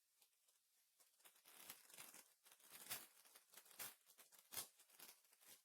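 Faint crinkling and tearing of a trading-card pack wrapper being ripped open, with a few sharper rips through the middle.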